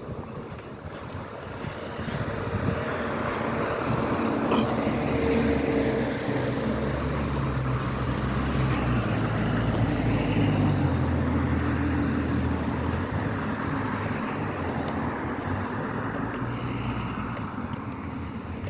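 Car engine and road noise heard from inside the cabin, growing louder over the first few seconds as the car picks up speed, then running on steadily.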